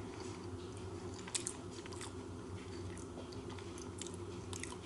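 A person chewing a mouthful of fried chicken sandwich, with a few faint mouth clicks, over a steady low hum.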